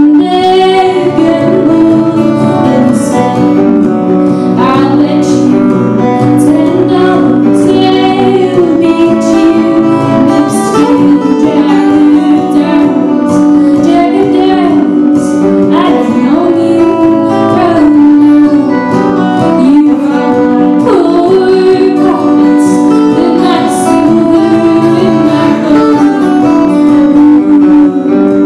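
Two acoustic guitars played together with a woman singing a melody over them, a live duo song performance.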